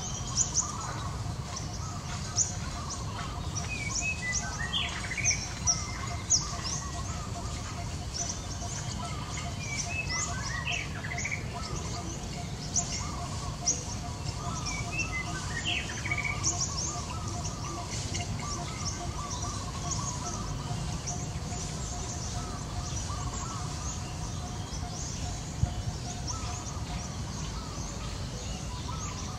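Outdoor birdsong: many small birds chirping, with short high chirps throughout and a few lower calls. Underneath are a constant low rumble and a faint steady hum that stops near the end.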